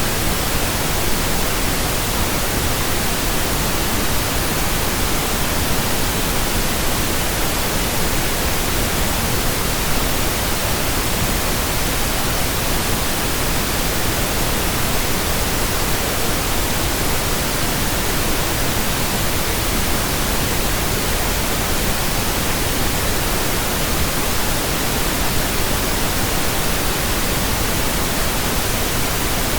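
Steady pink noise: an even, unchanging hiss that sounds like soft static from a radio tuned between stations.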